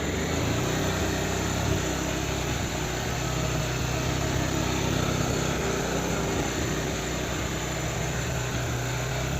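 Honda X-Blade 160 cc single-cylinder motorcycle engine idling steadily.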